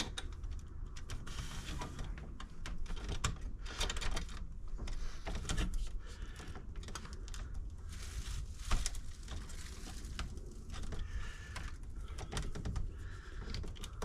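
Irregular small clicks, taps and rubbing from hands and tools working heavy electrical wires into the terminals of a 50-amp receptacle, over a low steady hum.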